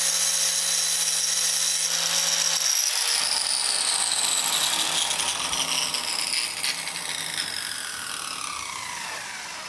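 Angle grinder running, grinding the tip of a screw to a point. After about two seconds its whine falls slowly and steadily in pitch and fades as the motor winds down.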